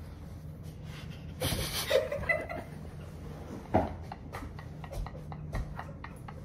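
Phone handling noise: rustling, scraping and scattered knocks as the phone is moved. There is a short breathy vocal sound about a second and a half in, a sharper knock near the four-second mark, and a steady low hum underneath.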